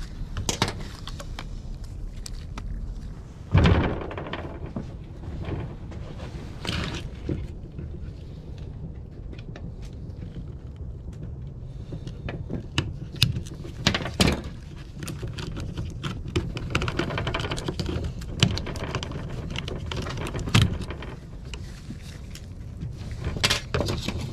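Hand tools and small metal parts of a chainsaw's handle and trigger mechanism clicking, knocking and scraping irregularly while the spring is worked free of the rusty, seized mechanism. The loudest knocks come a few seconds in and again halfway through.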